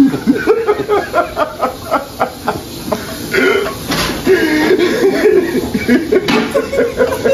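Men laughing, in short breathy bursts mixed with a few voiced words.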